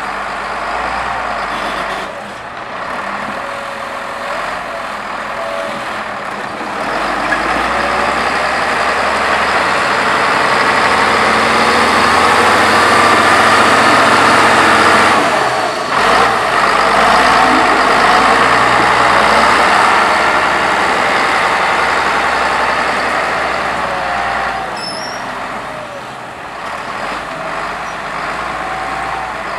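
Heavy road-construction machinery running, engine noise with a wavering high squeal over it. It grows louder several seconds in and eases off again near the end.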